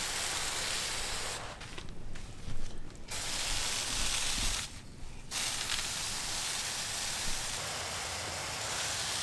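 Water spraying from a garden hose nozzle onto plants as a steady hiss, which drops away twice: for a second or two about a second and a half in, and again briefly around five seconds.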